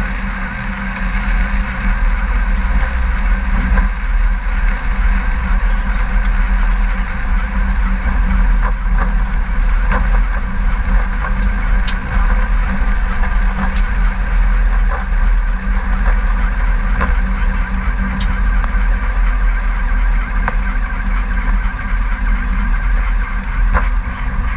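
Steady, loud cockpit noise of an Embraer E-Jet rolling on the ground: a deep rumble of engines and airflow with a constant hum, broken only by a few faint clicks.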